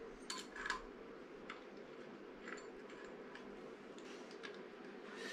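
Faint, scattered metallic clicks and taps of hands working on the fittings of an old split-phase electric motor: two sharper clicks about half a second in, then lighter ticks every second or so, over a steady low background hum.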